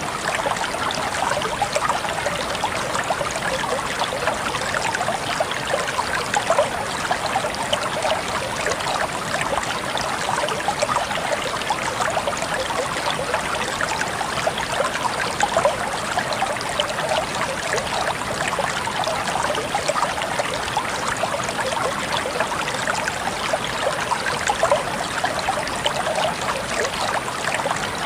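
Steady running water trickling, an even, unbroken hiss full of small splashing crackles.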